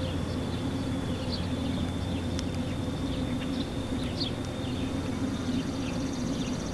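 Outdoor ambience with no siren sounding: scattered short bird chirps over a steady high insect drone and a low steady hum. A faster buzzing trill joins near the end.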